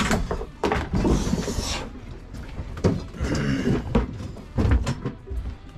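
Wooden sink cabinet being worked loose and lifted out: a string of knocks and thumps of wood, with a scraping rush about a second in.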